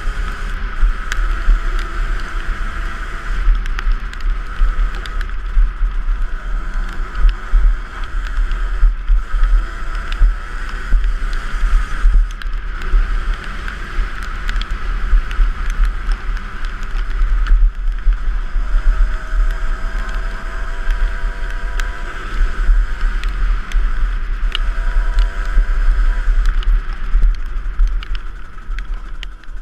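Two-stroke dirt bike engine revving up and down while riding, with heavy wind buffeting on the camera's microphone.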